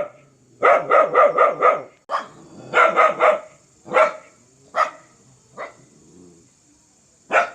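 A dog barking fiercely in bursts: a quick run of five barks, a single bark, a run of three, then single barks spaced about a second apart.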